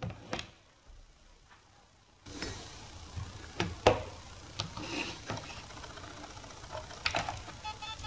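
Irregular sharp clicks and knocks as a 2.5-inch laptop hard drive is handled and pushed onto a USB-SATA adapter. They start a couple of seconds in, after a near-silent opening.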